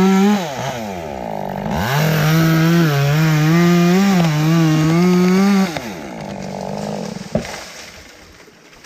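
Chainsaw running at full throttle as it cuts into the dead elm, its pitch wavering under load. It eases off briefly near the start, revs again, then winds down about six seconds in. A single sharp crack follows about a second later.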